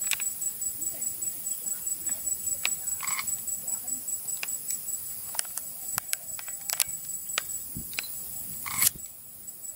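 Insects trilling in a steady high-pitched chorus, with scattered sharp clicks.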